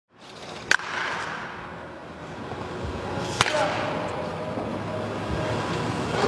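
Wooden baseball bat striking balls with two sharp cracks about two and a half seconds apart, over the steady background noise of an indoor practice hall.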